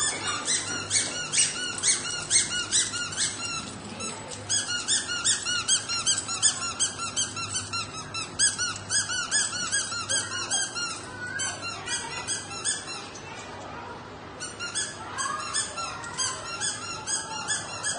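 A litter of corgi puppies whining and squealing together, many short high-pitched cries overlapping. The cries thin out for a moment about fourteen seconds in.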